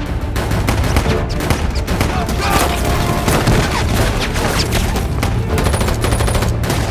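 A gunfight sound effect: a rapid, continuous volley of gunshots, many in quick succession, over dramatic score music.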